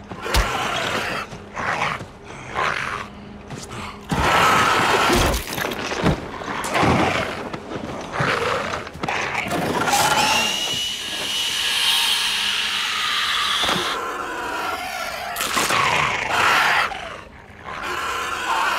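Struggle with a captured wight: the undead creature snarls and screeches amid sharp thuds and scuffling. Its long rasping screech runs from about ten to fourteen seconds in.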